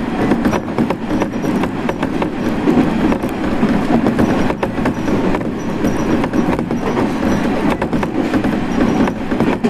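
Passenger train running along the line, heard from inside the car: a steady rumble of wheels on rail with frequent clicks and rattles.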